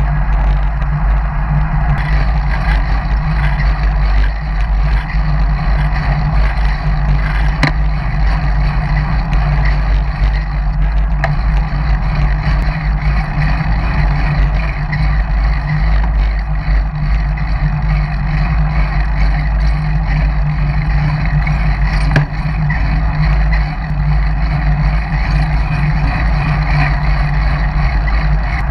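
Steady wind rush buffeting the microphone of a camera on a road bike's handlebars while riding along a paved trail, with the hum of the tyres on asphalt underneath. A couple of faint clicks stand out, about eight seconds in and again past the twenty-second mark.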